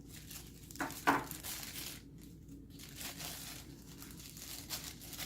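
Packaging crinkling and tearing in bursts as it is handled and pulled away, loudest about a second in.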